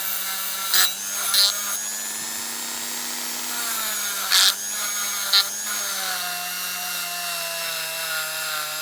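Rotary multi-tool running steadily as it cleans and polishes the zinc die-cast car body, with four brief louder scrapes as the bit bites on the metal.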